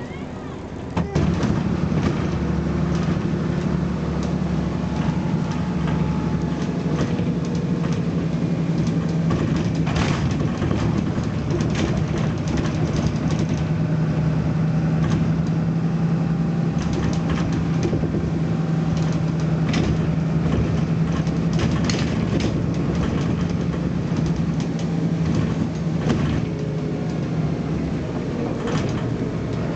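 BMC Belde 220-SLF city bus engine coming up hard about a second in and running loud under heavy acceleration, a steady low drone, with scattered clicks and rattles throughout.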